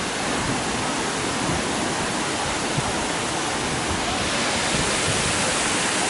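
Shiraito Falls, many thin streams of water pouring down a cliff face, making a steady, even rush of falling water.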